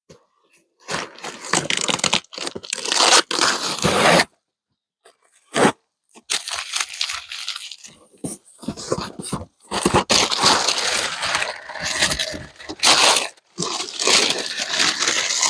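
Cardboard shipping box being torn open and its packing crinkled and crushed, in loud bursts of tearing and rustling with short pauses between.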